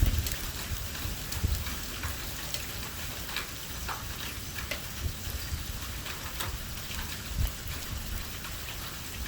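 Heavy rain pouring during a severe thunderstorm, a steady hiss with scattered sharp taps of drops striking nearby surfaces and some low rumbling.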